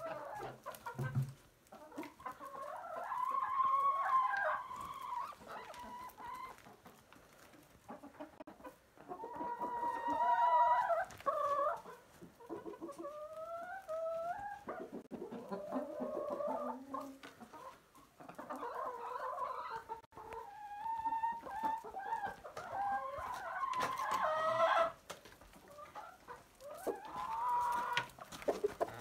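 A flock of hens and roosters clucking and calling, with repeated drawn-out calls of about a second each and a few short quieter gaps.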